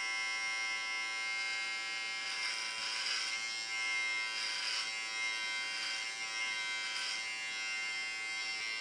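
Electric hair clippers running with a steady buzz while cutting through hair, with rougher, louder spells as the blades bite into the hair.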